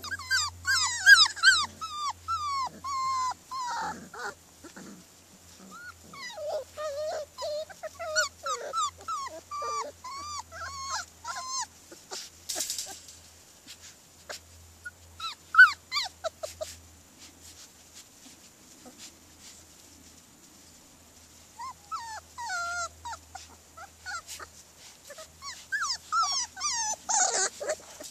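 Four-week-old Border Collie puppies whining and yipping: short, high, sliding cries that come in clusters with quiet stretches between.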